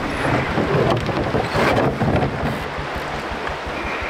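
Shallow creek running over gravel, with wind buffeting the microphone. Two louder scraping rustles come about a quarter second and a second and a half in, as a plastic barrel and gear are handled and moved over the gravel.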